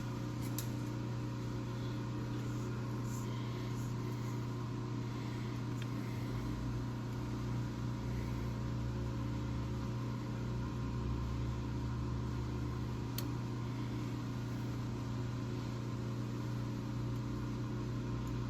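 Steady low electrical machine hum with a couple of faint light clicks.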